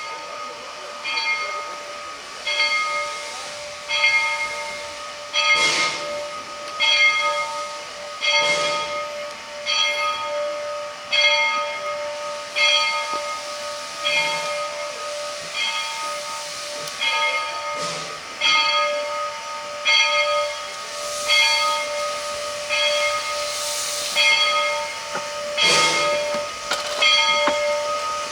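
Steam locomotive bell ringing steadily, struck about every second and a half, over the hiss of steam from the narrow-gauge engine, with a few louder bursts of hiss.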